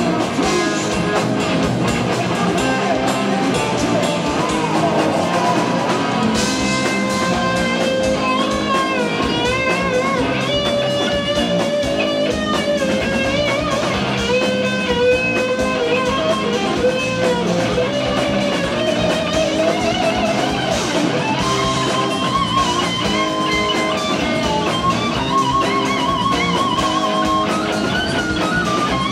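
Live rock band with an electric lead guitar solo on a Sky Guitar, the melody line bending and wavering with vibrato over a rhythm guitar and a drum kit.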